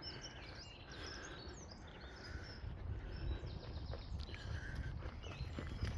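Woodland birds singing and chirping, many short calls overlapping, over a steady low rumble.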